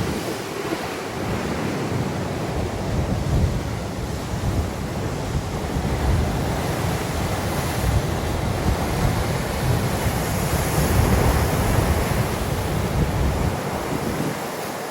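Lake waves washing steadily on the shore, with wind buffeting the microphone in a fluttering low rumble that eases near the end.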